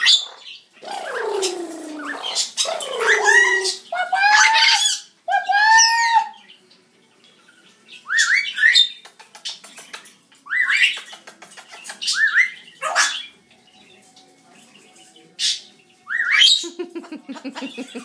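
Red-headed amazon parrot squawking: a run of loud calls, the first ones falling in pitch, then arching calls, then short, sharp squawks every second or two.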